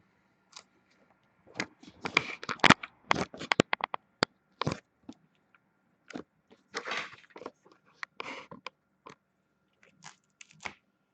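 Cellophane shrink wrap crackling and tearing on a sealed box of hockey trading cards as it is unwrapped and handled, with scattered sharp cracks and a couple of short rustles.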